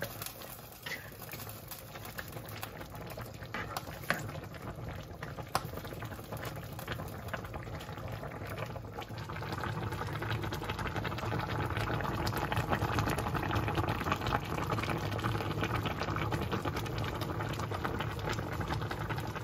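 Chicken soup boiling in a pan: a steady crackle and bubbling of broth with a few sharp ticks in the first half, growing louder about halfway through.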